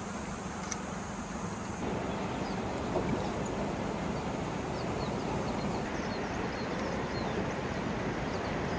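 Boat motor running steadily under a rush of river water against a strong current. The noise steps up louder about two seconds in, and a few faint high chirps come near the end.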